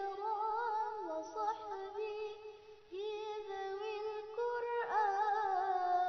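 Background vocal music: a high singing voice holding long, wavering notes, with a short break about three seconds in.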